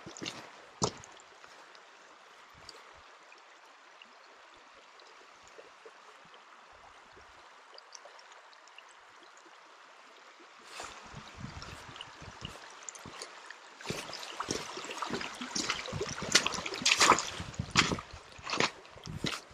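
Shallow, rocky mountain creek babbling quietly and steadily. About ten seconds in, irregular footsteps crunching on gravel and dry grass begin and grow louder, with the water still running underneath.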